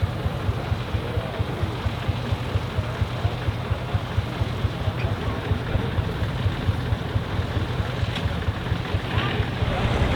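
Deutz F3L514 tractor's air-cooled three-cylinder diesel and a Claas Super pull-type combine running steadily while threshing wheat, with an even, pulsing low beat.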